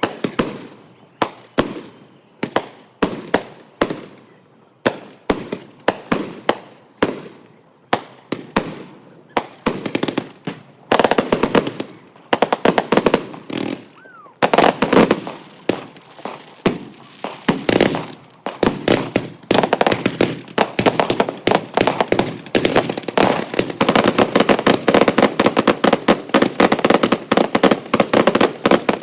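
Fireworks going off: sharp bangs about two a second at first, thickening after a few seconds into a dense, almost continuous crackle of rapid pops that is thickest near the end. A faint falling whistle comes about halfway.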